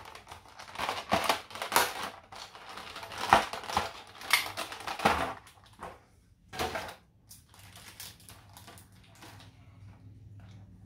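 Clear plastic packaging crinkling and crackling in the hands as a figure is taken out of its bag, with several sharp crackles; it dies away after about seven seconds, leaving only a faint low hum.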